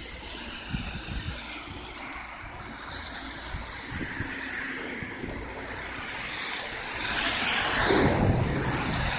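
Typhoon wind and rain, a steady rushing noise with wind buffeting the microphone, swelling louder about seven to eight seconds in.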